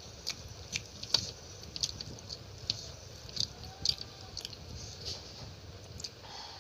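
A person chewing a mouthful of rice and chicken curry, with wet mouth smacks and squelches coming irregularly, about one or two a second.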